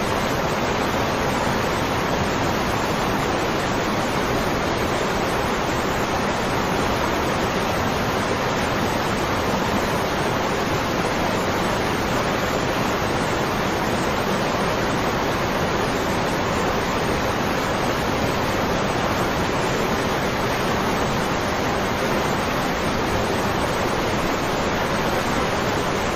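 Waterfall: a steady, unbroken rush of falling water, with no rise or fall in level.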